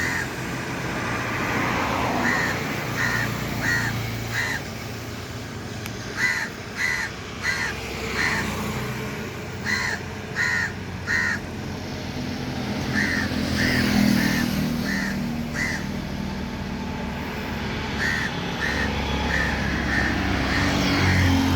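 A crow cawing in runs of short, evenly spaced caws, two or three a second, with pauses between the runs. Road traffic rumbles underneath, and vehicles pass midway and near the end.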